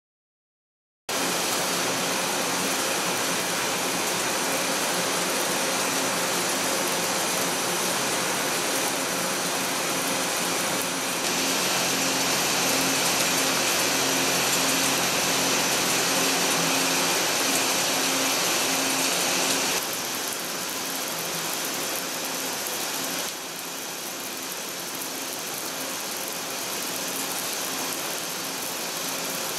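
Hwacheon VT-1150+ vertical turning center rough-turning the outside diameter of an SCM430 steel part: a steady cutting hiss over machine hum with a few constant tones, starting about a second in. Its level steps up about a third of the way through and drops twice later on.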